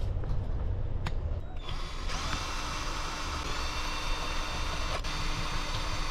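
A cordless drill or power screwdriver starts up about a second and a half in and runs at a steady speed, a constant high whir, used to back out screws after they were first loosened by hand. A few light clicks of tool handling come before it.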